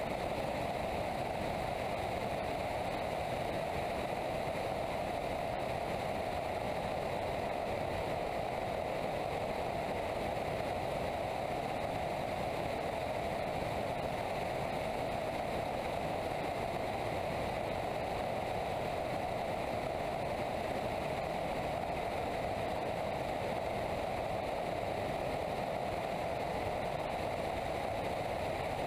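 Steady rush of airflow over a camera mounted on the outside of an ASK 21 glider in gliding flight, an even, unbroken noise with a faint thin whistle above it.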